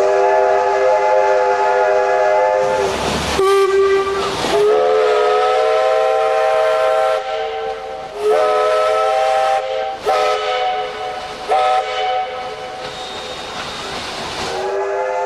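Steam whistle blowing in several long, steady blasts, with short bursts of hissing steam between the first blasts.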